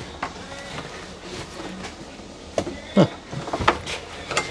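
A few sharp knocks and bumps over low, steady background noise, the loudest about three seconds in.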